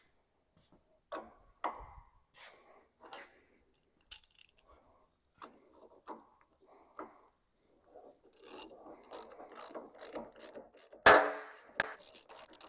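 Hand wrench ratcheting in short runs of clicks as bolts are turned on a hydraulic crane cylinder during reassembly, with one loud metal clank about eleven seconds in.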